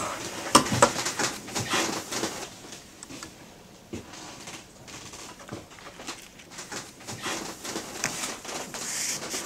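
Kitchen handling sounds: crockery and utensils clicking and knocking at a counter as breakfast is made, busiest in the first two seconds and again near the end.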